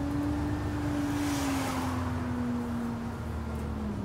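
Scania N94UB single-decker bus engine and driveline running in slow traffic, heard from inside the saloon: a low hum with a steady whine that drifts slowly down in pitch as the bus eases off, and a brief soft hiss midway.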